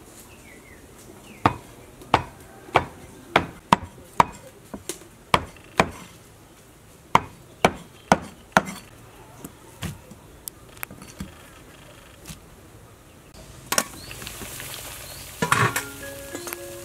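Large kitchen knife chopping a thin egg omelette on a round wooden chopping block: about twenty sharp knocks at roughly one or two a second, thinning out and stopping at about twelve seconds. Near the end, water boiling in a wok, a clatter, and light mallet-percussion music starting.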